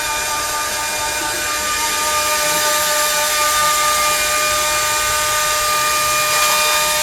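Dog dryer running steadily: a rush of blown air with a steady motor whine.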